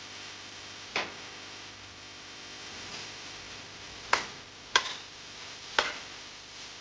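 Four sharp clicks: one about a second in, then three more between about four and six seconds, over a steady hiss.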